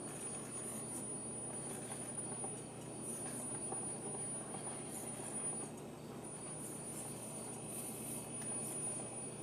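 Faint steady background noise with a thin high-pitched whine that drops out for about a second midway.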